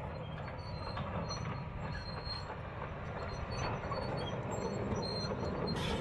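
Hitachi Zaxis 200 crawler excavator running: a steady diesel engine rumble with light mechanical clatter.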